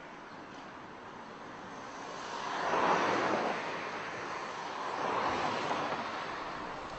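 Road traffic on a wide street: a steady rush of tyre and engine noise that swells as a vehicle passes about three seconds in, with a smaller swell near five seconds.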